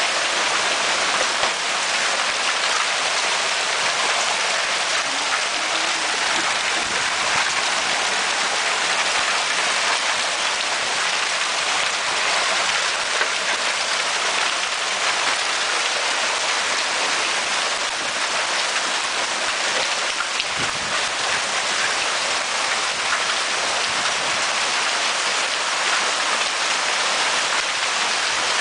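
Hailstorm: a steady, dense hiss of hailstones falling and striking the ground and roofs.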